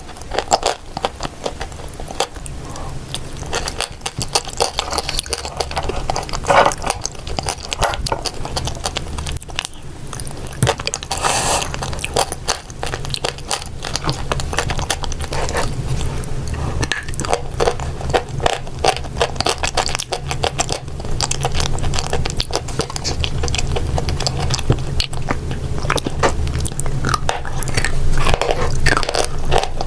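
Close-miked biting and chewing of dry chalk and clay: a dense, irregular run of crisp crunches and clicks.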